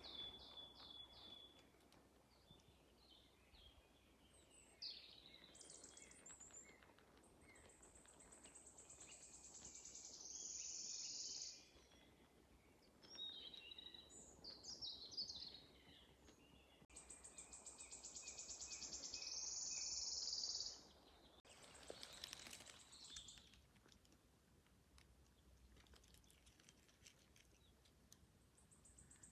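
Several small songbirds singing, faint. The most prominent is a high, fast trill lasting a few seconds that grows louder as it goes. It comes twice and starts again at the end, with shorter, varied chirping phrases from other birds in between.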